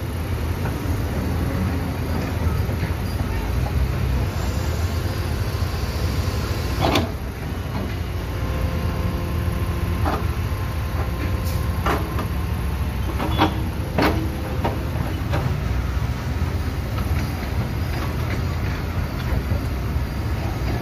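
Diesel engines of a long-reach excavator and dump trucks running steadily, with several sharp knocks from the excavator's bucket and the soil going into a truck bed, mostly around the middle.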